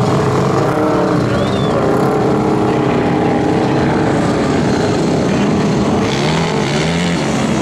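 Dune buggy engine running hard at high revs as the buggy climbs a sand dune, its pitch wavering, with a brief rise in revs about six seconds in.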